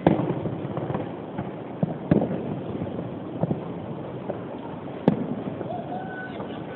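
Fireworks salute going off in the distance: a sharp bang right at the start, then further bangs about two, three and a half and five seconds in, over a constant crackling rumble of the display.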